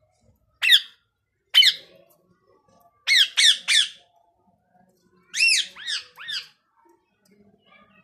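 Indian ringneck (rose-ringed) parakeet giving short, high calls, each rising then falling in pitch. There are two single calls, then a quick run of three, then another run of three.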